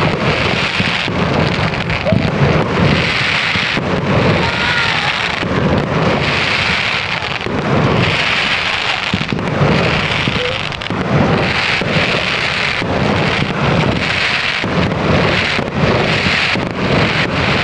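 Large fireworks display in full swing: a continuous barrage of bangs and rumbling booms, with waves of dense crackling from crackle-effect shells swelling every second or two.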